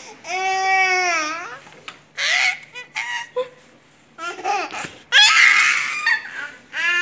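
A baby's voice: a drawn-out whiny cry, then short squeals and babbling, and a loud shrill squeal about five seconds in, with another long whiny cry starting near the end.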